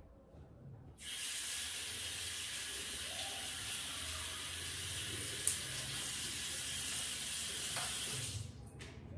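Water running from a bathroom tap into a sink, turned on suddenly about a second in and stopping near the end, with a short click midway.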